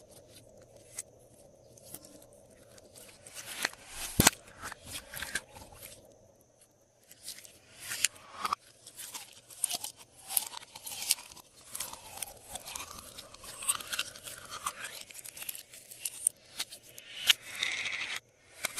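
Glossy slime being mixed and squished, making sticky clicks and crackles. The sounds are sparse at first with one sharp loud click about four seconds in, then turn into dense, almost continuous crackling after a brief pause.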